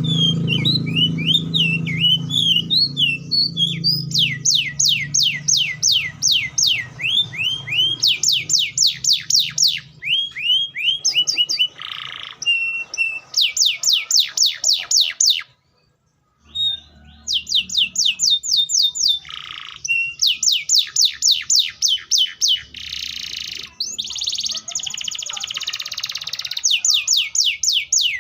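Canary (Serinus canaria) singing: fast rolling trills of rapidly repeated high, down-sweeping notes alternating with slower whistled notes, in phrases. The song breaks off briefly about halfway through.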